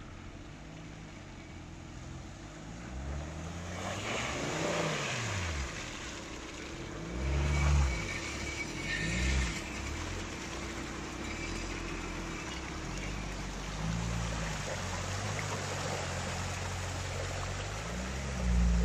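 Volvo XC70 D5 turbodiesel engine revving up and down repeatedly as the car drives through deep mud and water. Its off-road tyres churn and splash the muddy water, with louder surges of power about 8 and 9 seconds in and again near the end.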